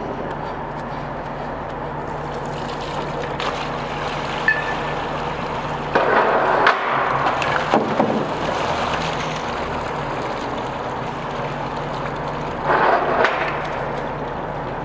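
Water circulated through a pipe test fixture pouring out into a sump tray, a steady rushing wash over a low steady hum. There are two louder bursts, about six and about thirteen seconds in, and a click a little before the first.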